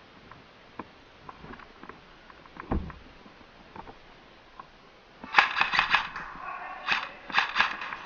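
Faint scattered ticks and a single dull knock, then about five seconds in, airsoft guns fire several short rapid bursts of sharp cracks in a small indoor space.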